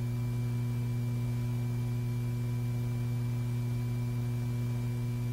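Steady electrical hum on an old film soundtrack: one low tone with several fainter higher tones above it, unchanging throughout.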